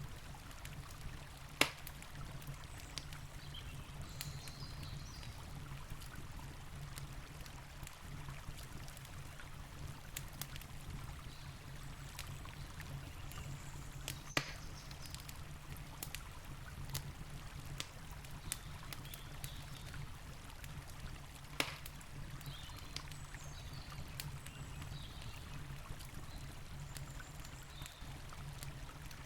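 Campfire crackling with scattered sharp pops, three of them louder than the rest (about 2 seconds in, near the middle and about two-thirds through), over the steady low rush of a river.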